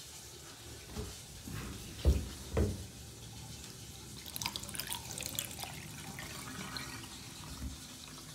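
Water trickling and bubbling down a bathtub drain, with two short soft knocks about two seconds in and faint crackly fizzing in the middle.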